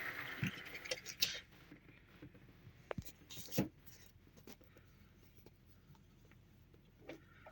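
Grizzly mini lathe with a 6-inch chuck winding down and going quiet within the first second or so. Then a few light clicks and taps, the strongest two about three seconds in.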